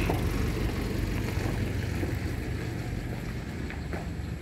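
A steady low motor hum, like an engine running, under a faint background hiss, slowly growing quieter.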